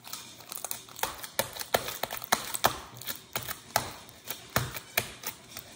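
Homemade slime being kneaded and stretched by hand, giving off irregular sharp clicks and pops, about three or four a second.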